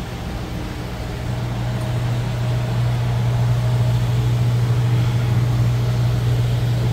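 Large air-conditioning unit running with a loud, steady low hum that grows a little louder about a second in.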